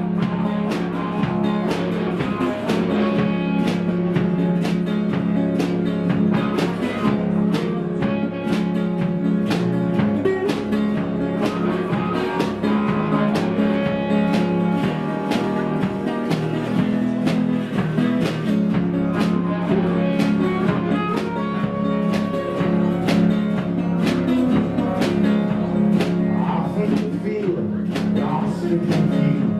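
Background music: a guitar-led song with a steady beat, with no words sung.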